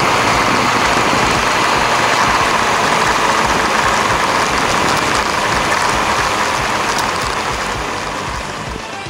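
Wind rushing over the action camera's microphone as a Honda CB400 Super Four rides along, a steady noisy rush with the bike's running underneath. It eases off a little near the end.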